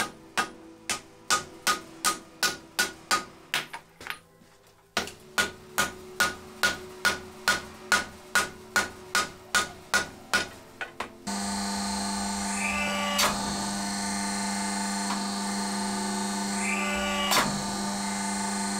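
Hand hammer striking a hot Damascus steel billet on an anvil in a steady rhythm, about two and a half blows a second, with a short pause about four seconds in. About eleven seconds in the blows give way to the steady hum of a forging press running, with two sharp clunks.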